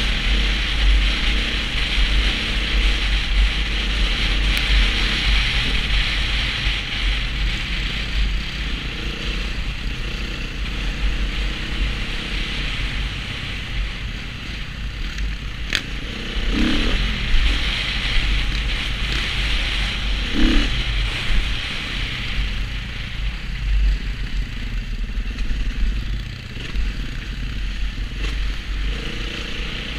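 Dirt bike engine running under load as the bike rides along a muddy trail, with a couple of brief revs a little past halfway. Heard through a helmet-mounted camera, with a heavy wind rumble on the microphone.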